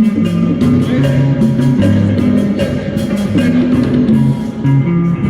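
Live band playing a song at a sound check: a stepping bass line under guitar, with a drum kit keeping a steady beat with cymbal strikes.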